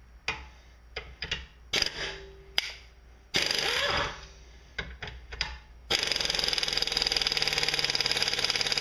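Impact wrench hammering on a rusted sump bolt of a Briggs & Stratton engine. A few clicks as the socket goes on, then a short burst about three and a half seconds in, then a long, even run of rapid hammering from about six seconds: the bolt is in there good and won't break loose.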